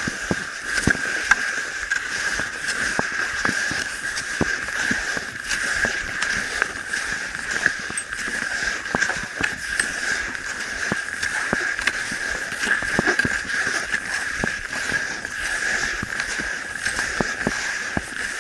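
Cross-country skis gliding over groomed snow, a steady scraping hiss, with irregular crunching knocks from ski poles planting in the snow.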